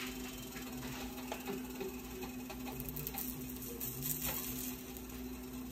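Pancakes sizzling softly in a cast-iron skillet, with light scattered clicks and taps of a silicone spatula against the pan, over a steady low hum.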